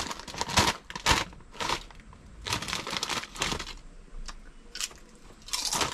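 Potato chip packet crinkling as it is handled, in irregular bursts with short pauses between.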